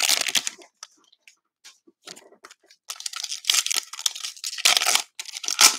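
A cellophane trading-card pack being torn open, then crinkling and rustling in short bursts as the cards inside are handled.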